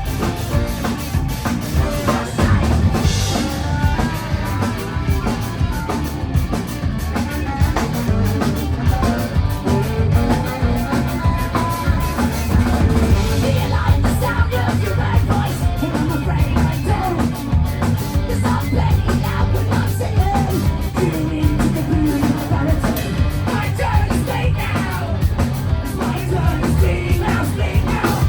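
A live band playing a loud, fast rock song with drum kit and singing, heard through a crowd-side phone recording.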